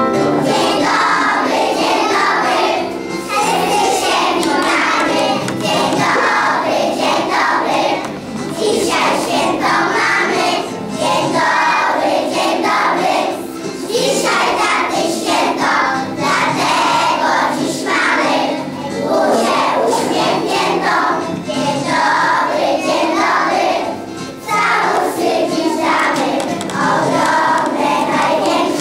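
A large group of young children singing a song together as a choir, in phrases a few seconds long with short breaths between them.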